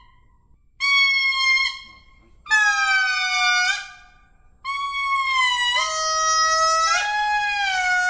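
Lemur calling: three long, wailing calls in a row with short pauses between. The last is the longest, dropping in pitch partway through and then rising a little.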